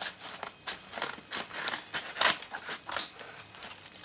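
Scissors snipping through the edge of a paper padded mailer envelope: a string of short, crisp cuts with paper crinkling, the loudest a little after two seconds in and again near three seconds.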